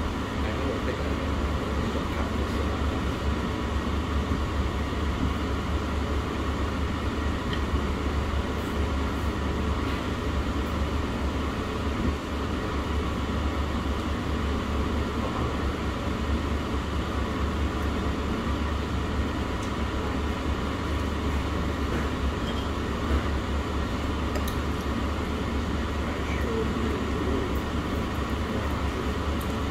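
Steady low rumble and hiss of restaurant room noise, with a few faint clicks.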